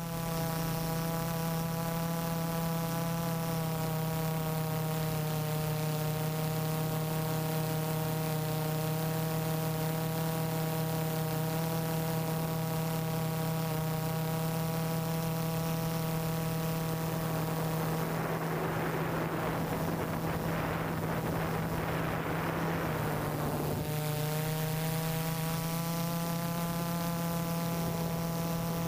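Y6 multirotor drone's motors and propellers, heard from its onboard camera as a steady, even-pitched hum. About two-thirds through, the hum breaks into a rougher rushing sound for several seconds, then settles back into a steady hum a little higher in pitch.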